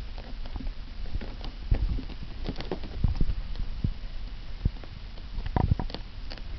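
Irregular soft taps and scuffs of a kitten pawing and clawing at a woven fabric surface.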